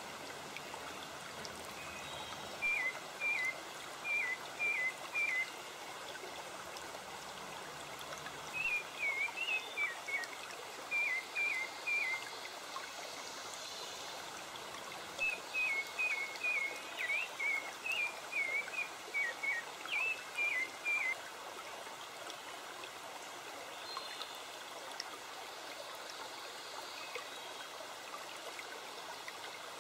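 Steady sound of running water, like a stream, with a bird chirping in three runs of short, quick, falling notes during the first two-thirds.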